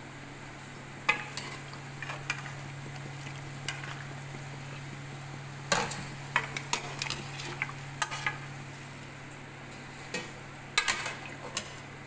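A metal spoon scrapes and knocks against an aluminium pot as chunks of boiled lamb are stirred into sautéing onions, with a faint sizzle of oil. The knocks come irregularly, in clusters about six and eleven seconds in, over a steady low hum.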